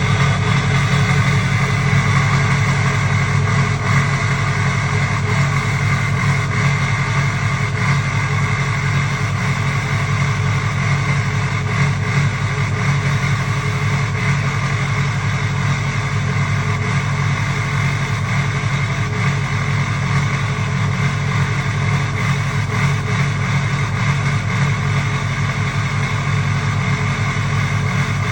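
2004 Ford 6.0 Powerstroke turbodiesel V8 idling, with the occasional hiccup in its idle. The owner suspects the injectors but is looking for other causes.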